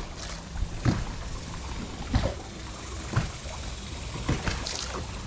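Lake water lapping and sloshing against the hull of a bass boat over a steady low rumble, with a few short sharp splashes at irregular moments.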